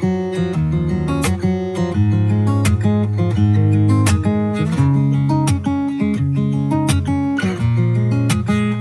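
Background music: an instrumental stretch of a pop song, with strummed acoustic guitar and a steady beat.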